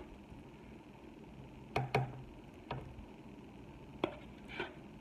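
A spoon knocking and scraping against the rim and side of a pot while filling is scooped out. There are five short knocks: a close pair about two seconds in, another shortly after, and two more near the end.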